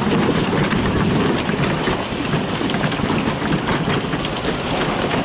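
Cars of the Whip amusement ride running along their track: a steady rumble with frequent clicks and rattles.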